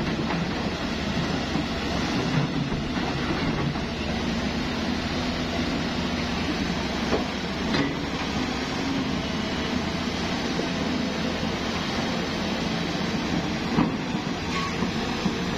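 Excavator running steadily, with a few sharp metallic clanks scattered through.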